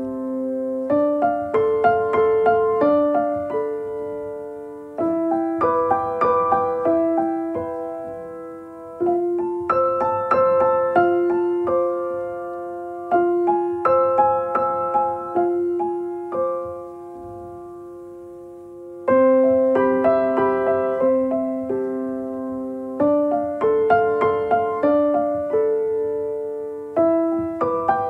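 Background music: a piano playing a slow, gentle melody, each note ringing and fading. A little past the middle the notes die away briefly before a new phrase starts.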